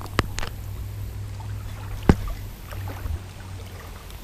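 Handling noise from a spinning rod and reel during a retrieve, picked up by a GoPro's microphone: a steady low rumble with a few sharp clicks, two close together near the start and a louder single one about two seconds in.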